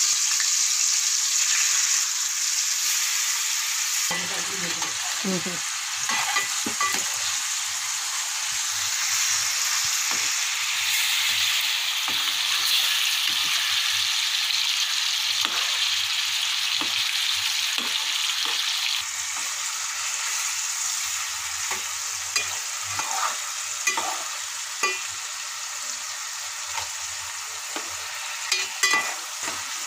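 Fish pieces shallow-frying in oil in a metal pan: a steady sizzle, with the short clinks and scrapes of a fork turning the pieces against the pan, more frequent near the end.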